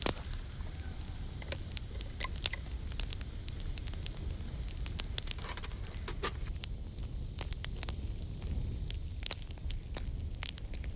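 Cooking fire crackling, with scattered sharp pops over a steady low rumble.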